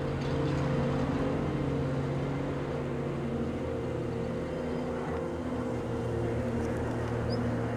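A steady low hum made of several held tones, with a slight shift in its pitches about halfway through.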